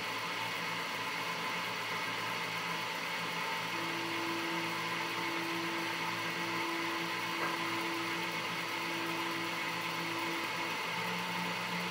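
Homemade mini CNC lathe running a test program with no tool or workpiece: a steady motor hum, with a steady whine added from about four seconds in until about ten seconds in.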